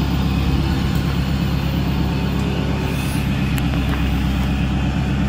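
Ford F-550's 6.7-litre Power Stroke turbo diesel running steadily with the PTO engaged to drive the aerial unit's hydraulic pump.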